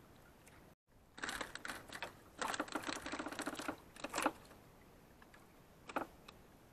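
Rapid clattering clicks in two quick runs, the first about a second long and the second about two seconds long, then one sharp knock near the end.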